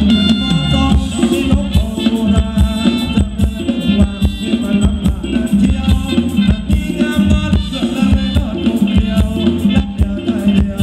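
A live band playing upbeat Thai ramwong dance music through a PA, with a quick steady drumbeat under keyboard-like melody lines.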